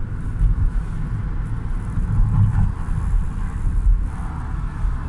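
A car driving along a town street, heard from inside the cabin: a steady low rumble of road and engine noise.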